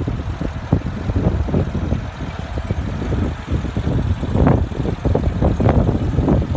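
1990 BMW 325i's inline-six engine idling, with an uneven low rumble that swells and fades.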